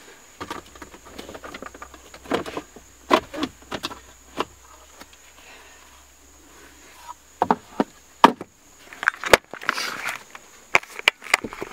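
Plastic center-console trim panel of a Subaru BRZ being pulled off its clips and handled: irregular sharp plastic clicks and knocks, coming thicker and louder in the last few seconds.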